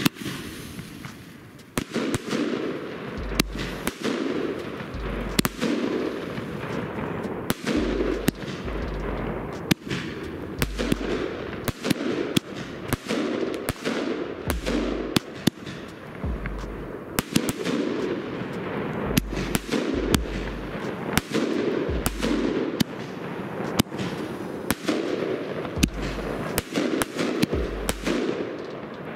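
Consumer firework battery (Funke 'Funkenweiden' cake) firing in sequence: sharp launch bangs and bursts, roughly one a second, over a continuous hiss of burning spark-willow effects.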